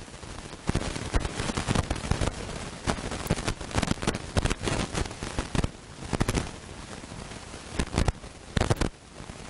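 Irregular bursts of crackling and popping noise close on the microphone, coming in uneven clusters with the loudest about a second in and again near the end.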